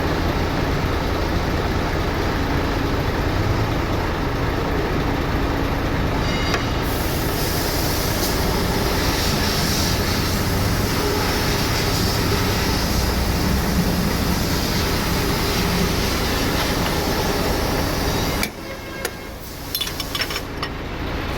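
Steady vehicle noise, a low mechanical rumble with a hiss joining about seven seconds in; it drops away suddenly near the end.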